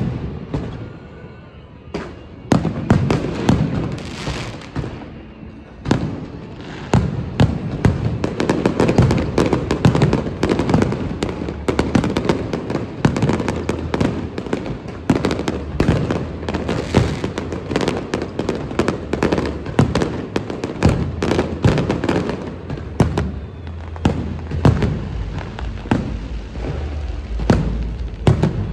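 Fireworks going off: a few separate bangs at first, then from about seven seconds in a dense, continuous barrage of cracks and booms.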